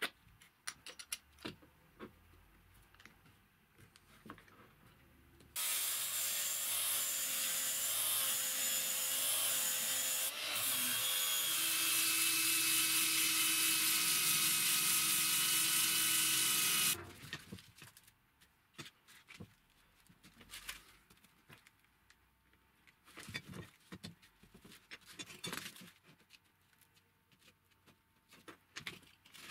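Electric drill spinning a drum of stacked wooden discs on a threaded rod while a hand presses against it, sanding the drum true. A steady motor whine over a rough rubbing hiss runs for about eleven seconds, with a brief dip partway and a shift in pitch, then cuts off. Light clicks and knocks of handling come before and after.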